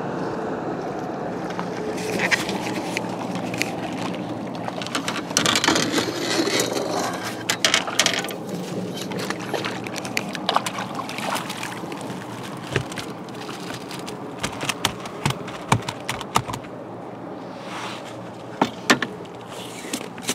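Handling noise in a small fishing boat: scattered knocks, clicks and scrapes as the camera and gear are moved about, over a steady low hum.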